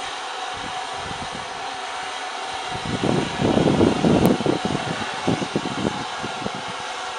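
LSWR M7 0-4-4 tank steam locomotive 30053 moving slowly, with a steady hiss throughout. About three seconds in, a louder irregular low rumble comes in for a second or two, then thins out.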